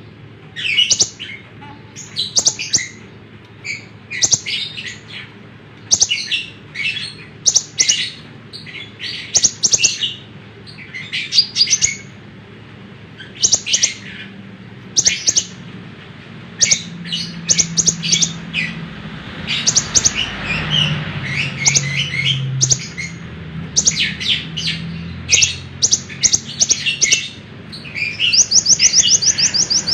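Konin (kolibri ninja) sunbird singing vigorously: clusters of short, sharp, high chirps in quick runs, ending in a fast, even trill. A faint low hum runs under the song in the middle.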